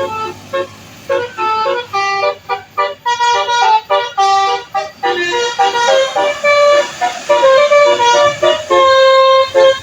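Telolet basuri multi-tone air horn on a truck playing a quick melody, its notes stepping up and down several times a second after a short lull about a second in.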